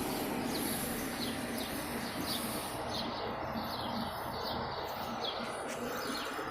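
A small bird chirping repeatedly, short high chirps about two a second, over a steady outdoor background hum.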